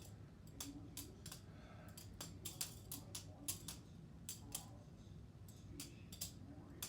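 Bear Ops balisong with stainless steel handles being flipped: faint, irregular light metallic clicks and clacks of the handles and latch against each other, about three a second.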